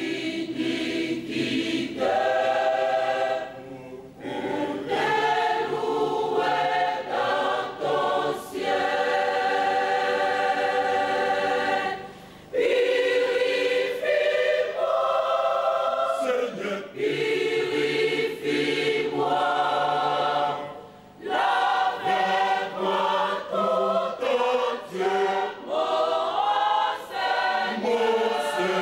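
Mixed choir of women and men singing a hymn in long held phrases, with brief breaks between phrases about 4, 12 and 21 seconds in.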